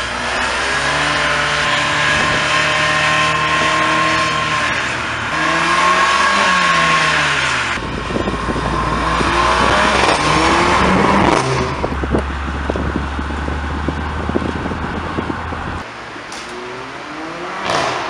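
Mercedes-AMG A45's turbocharged 2.0-litre four-cylinder pulling and revving, its note rising and falling a few times. In the middle it gives a run of sharp exhaust pops and crackles.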